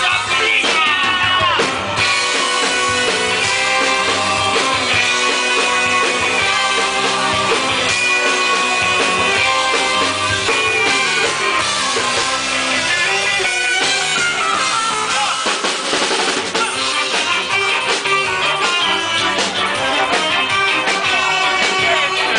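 Live ska band playing: saxophone and horns holding lines over electric guitar and a drum kit, with a steady beat.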